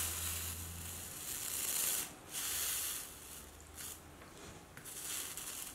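Soldering iron melting 60/40 solder along a copper-foiled stained-glass seam, the flux sizzling softly in a hiss that comes and goes, with a few faint ticks.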